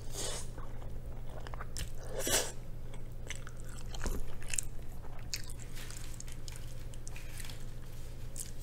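Close-up eating sounds of a person slurping and chewing cheesy rabokki noodles: noodles sucked in near the start and again about two seconds in, then wet chewing with small lip smacks and clicks.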